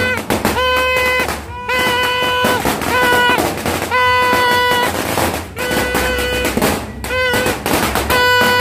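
Horn blasts repeated again and again on the same note, each about half a second long and sagging in pitch as it ends, over a dense crackle of firecrackers popping.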